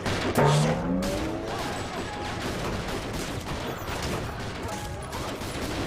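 Sustained rapid gunfire, a volley of many shots from several guns at once. A short pitched sliding sound cuts in about half a second in.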